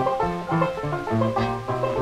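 Instrumental break in an old-time folk song: a banjo picking the tune in a steady rhythm, with no singing.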